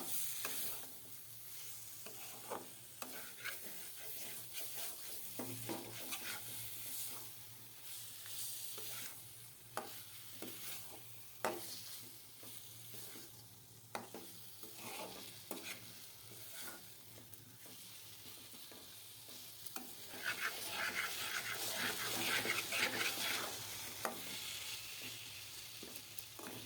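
Chicken pieces being bhuna-fried in spice paste in a karahi: a spatula scrapes and knocks against the pan every second or so over a steady sizzle, which grows louder for a few seconds near the end. The meat is frying dry in the juices it has released, with no water added.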